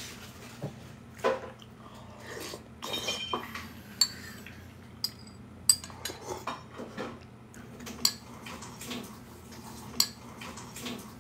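A metal spoon clinking and tapping against a ceramic bowl while eating from it: a handful of sharp clinks spread out, a few ringing briefly.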